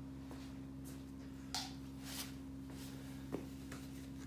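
Steady low hum of a quiet garage, broken by a few faint short sounds of someone handling tools: a brief hiss about a second and a half in, another shortly after, and a sharp knock near the three-second mark.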